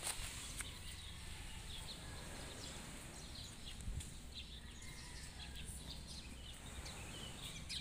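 Small birds chirping in short, scattered calls over a steady low rumble of outdoor ambience, with a soft knock about four seconds in.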